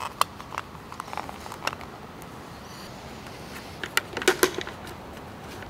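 Light clicks and rustling of safety gear being put on: plastic safety goggles, then a Husqvarna forestry helmet with mesh visor and ear muffs. Scattered single clicks in the first two seconds and a cluster of sharper clicks about four seconds in, over a steady faint hiss.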